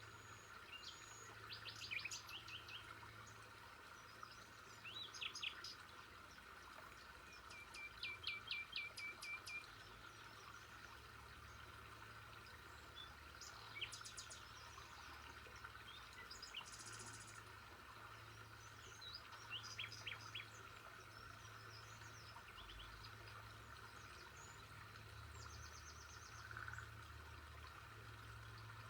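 Birds chirping in short runs of quick, high notes, several times, over a faint steady background hiss.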